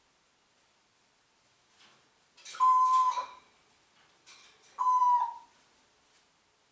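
Congo African grey parrot giving two calls about two seconds apart, each a short rough squawk that settles into a held, pure whistled note.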